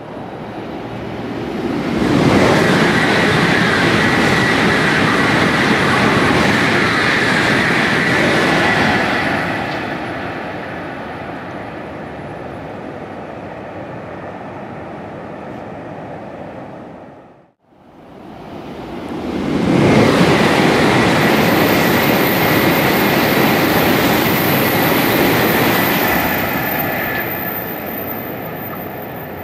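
Shinkansen bullet trains passing at high speed, twice: each pass is a loud rushing noise that builds over a couple of seconds, holds, then fades away. The two passes are split by a sudden cut to silence a little past the middle.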